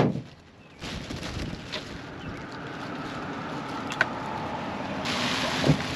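Wind on the microphone under handling noises from a paint can and roller tray on plastic sheeting: a sharp knock at the start, a click about four seconds in, and a rustle with a dull thump near the end as the can is lifted and tipped over the tray.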